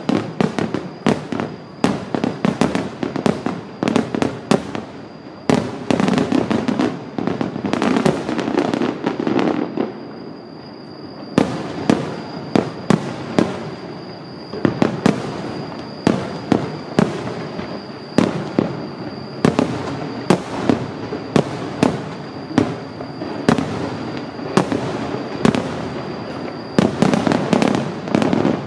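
A rapid barrage of aerial firework shells bursting, a dense run of sharp bangs and crackle. The bangs ease to a softer crackle about ten seconds in, then resume thick and fast.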